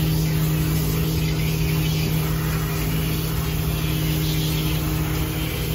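Handheld sprayer rinsing a dog in a stainless-steel grooming tub: water hissing steadily over a constant low motor hum.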